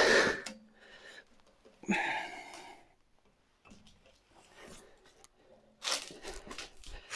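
A man's breathy exhale, falling in pitch, at the start and another short breath about two seconds in as he sits down in a newly built office chair, followed by faint rustles and light taps near the end as he shifts in the seat.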